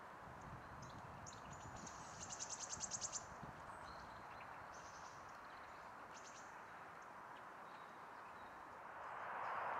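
High, thin songbird calls: a rapid trill of about ten notes in a second a couple of seconds in, then two shorter bursts of calls. Under them is a steady rushing background that grows louder near the end.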